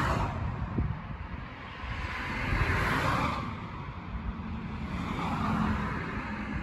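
Road traffic: cars passing one after another, three passes each swelling and fading over a second or two, over a low wind rumble on the microphone.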